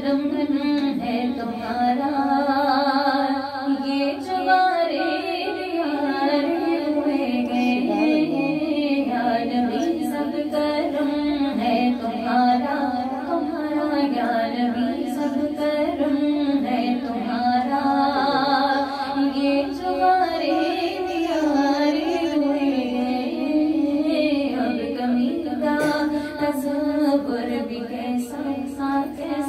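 A woman singing a naat, a devotional song in praise of the Prophet Muhammad, solo into a microphone, in a melody that glides between long held notes.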